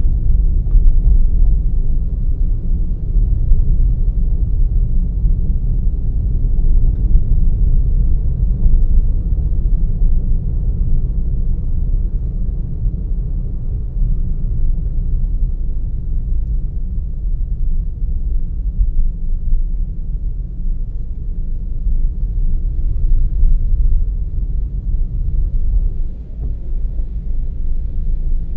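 Car driving along a road, heard from inside the car: a steady low rumble of engine and road noise.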